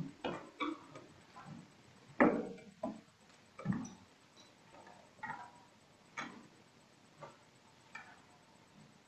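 Uneven footsteps and wooden knocks on a wooden pulpit as one person steps out of it and another climbs in. There are about a dozen irregular thuds, the loudest about two seconds in.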